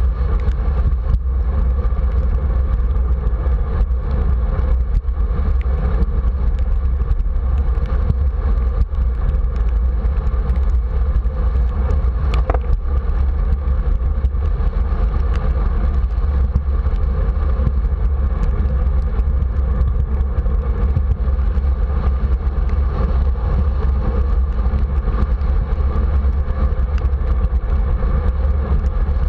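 Steady wind rumble on the camera's microphone, with road noise from bicycle tyres rolling over wet pavement while riding.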